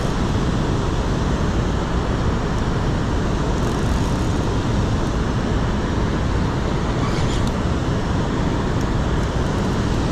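Steady rushing roar of river water pouring over a low-head dam spillway.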